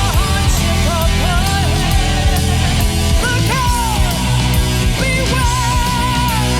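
Loud heavy punk-style rock music with a full, driving low end and a melody line that slides and wavers in pitch.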